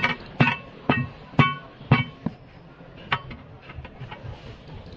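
Hammer striking metal in sharp, ringing blows, about two a second, that thin out after about two and a half seconds.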